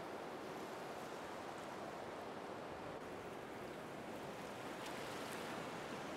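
Steady faint hiss of room noise, with a few faint ticks about five seconds in.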